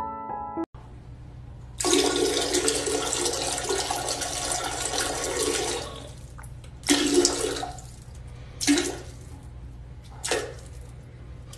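Water rushing in a toilet bowl for about four seconds, then three short rushes of water, over a low steady hum.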